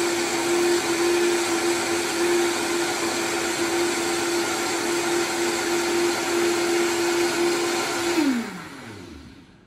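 Vitamix blender running at high speed, blending a fruit smoothie, with a loud steady motor whine. About eight seconds in it is switched off and the motor spins down, its pitch falling away as it stops.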